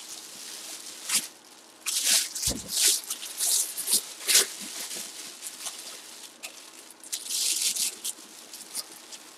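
Clear plastic bag crinkling and rustling in irregular bursts as a football helmet inside it is handled and turned, with one dull bump about two and a half seconds in.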